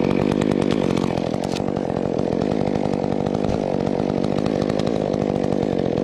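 Chainsaw running steadily at an even pitch.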